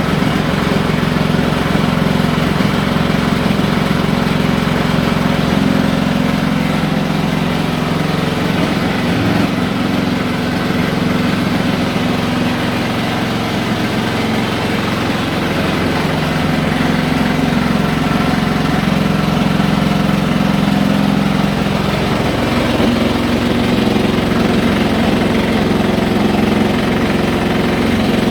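Haier i-Pro Series 7 HW100-B14979S washing machine on a 1400 rpm spin, running with a loud, steady mechanical noise from deep inside the machine towards the back. The owner suspects premature drum bearing failure.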